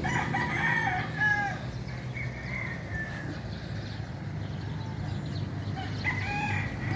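Gamecocks crowing: a loud crow at the start lasting about a second and a half, a fainter one about two seconds in, and another beginning near the end, over a low steady hum.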